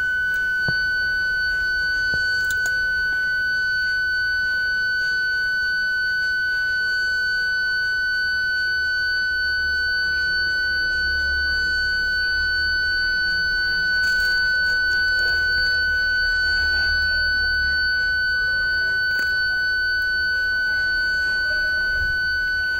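Toyota parking-sensor buzzer sounding one unbroken high-pitched tone, not beeping: the solid tone that parking sensors give when an obstacle is very close. A faint low rumble lies beneath it.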